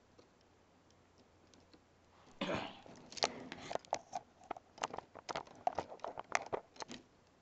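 Plastic K'NEX pieces handled and worked while the model is being opened up: a short scraping rustle about two and a half seconds in, then a run of irregular sharp plastic clicks and snaps.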